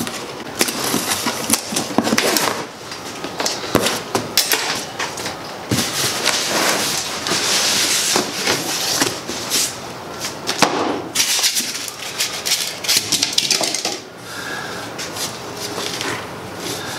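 A large cardboard shipping box being cut open and unpacked: the strapping snipped, then a run of cardboard scraping, tearing and rustling with scattered knocks as the flaps are pulled open and the contents are handled.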